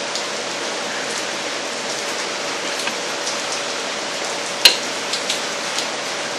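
Steady rushing hiss with a faint hum underneath. About two-thirds of the way in comes a sharp click of a hand tool, followed by a few lighter clicks.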